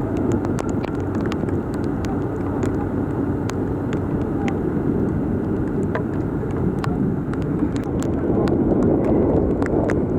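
Heavy rain with scattered drops ticking sharply, over a steady low rumble of vehicles in floodwater that swells a little near the end.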